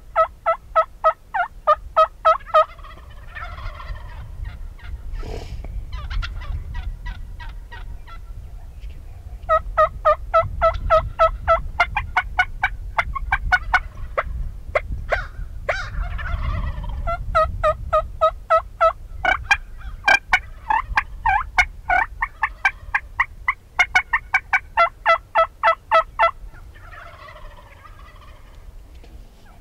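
Merriam's wild turkeys calling: long runs of fast, evenly spaced yelps, about five a second, broken three times by a rattling gobble from the strutting toms.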